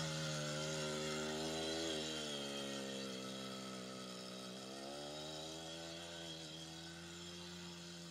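Small children's quad bike engine running as the quad rides away, growing steadily fainter. Its pitch drops for a couple of seconds in the middle, then picks up again.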